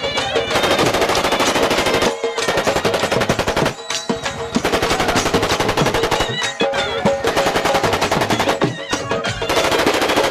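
Long bursts of rapid automatic gunfire, shot after shot in quick succession, broken by a few short pauses.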